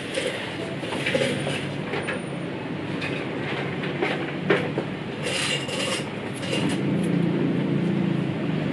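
Hair being cut with scissors: irregular sharp snips over a steady low hum, with a short hiss about five seconds in.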